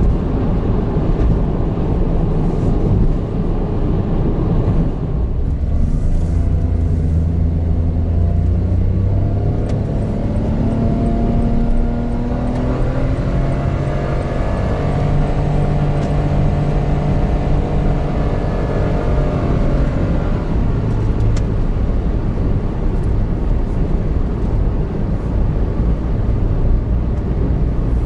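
Road and tyre rumble heard inside the cabin of a 2017 Honda N-BOX Custom under way, with its 660 cc turbocharged three-cylinder engine. The engine note climbs about five seconds in as the car accelerates, and in the middle a pitched note rises and then falls back over several seconds.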